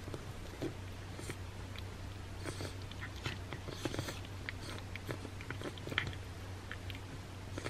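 A congested cat licking a churu puree treat off a paper plate: irregular wet licking and smacking clicks, over a low steady hum.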